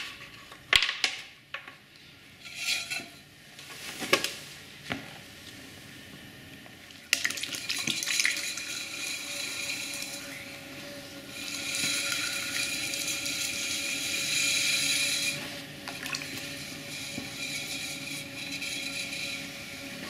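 A few light knocks and thuds, then a potter's wheel running with a steady motor hum while wet clay is pressed and centered under the hands, giving a watery swishing that begins abruptly about seven seconds in and swells for a few seconds in the middle.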